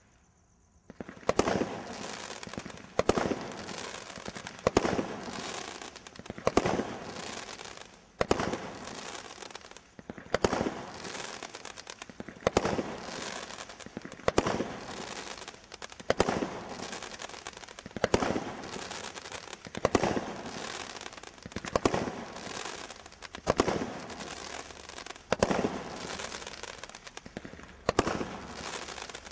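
Garden combination Roman candle firing its 16 shots one after another. Each shot is a sharp report, about one every two seconds, with a steady hiss between shots as the stars burn.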